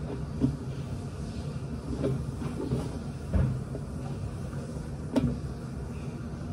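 Someone handling gear close by: about four dull knocks and bumps spread through, with light rustling, over a steady low rumble.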